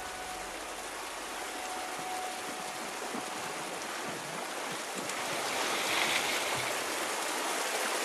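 Rushing river rapids: a steady hiss of white water that grows louder about five seconds in.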